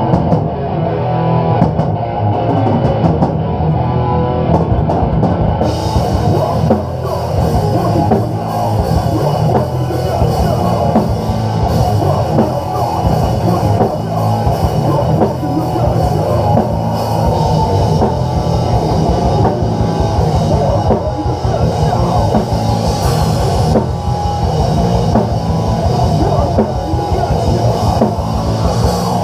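Live heavy metal band playing: distorted electric guitars and a drum kit, with shouted vocals. Cymbals join about six seconds in, and the song cuts off right at the end.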